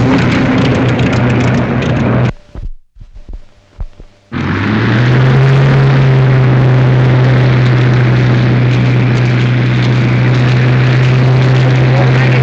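Spitfire fighter's piston aero engine running loudly with a steady low drone. It cuts out about two seconds in, returns about two seconds later, rises slightly in pitch and then holds steady.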